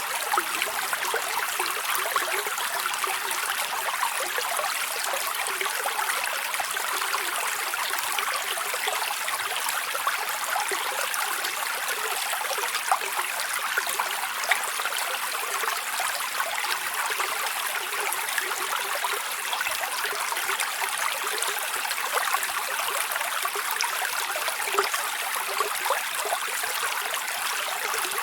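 Small stream of water running over rocks, a steady babbling and trickling rush with no break.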